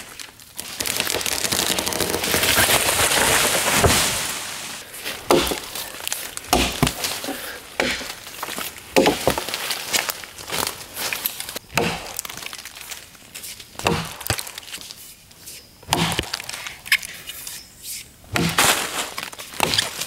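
A small tree crashing down through branches and leaves for about four seconds after a Husqvarna axe has chopped it through. This is followed by a series of separate sharp axe strikes into the wood, a second or more apart.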